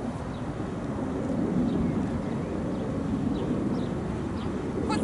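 Steady low outdoor rumble of background noise with no distinct event, like distant traffic or wind on the microphone.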